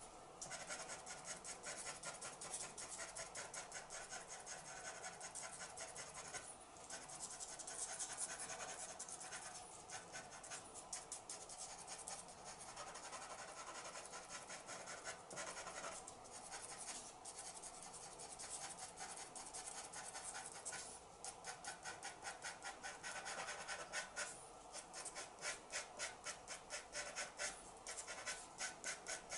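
Pencil tip scratching on drawing paper in quick short strokes, a few a second with brief pauses, as fur hairs are drawn in.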